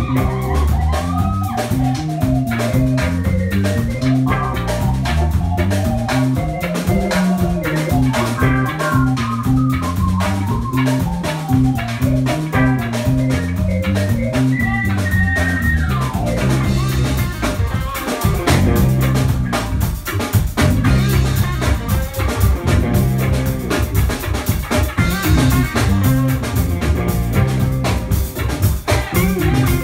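Live band playing an instrumental reggae passage: a moving bass line and drum kit under electric guitar and keyboard lines, with one high note held briefly midway through.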